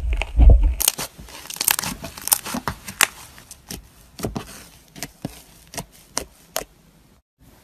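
Crunchy foam-bead slime (floam) squeezed and kneaded by hand, crackling and popping as the beads press together, with a few low handling thumps in the first second. The crackle is dense at first, then thins to scattered single pops as fingers poke into the slime.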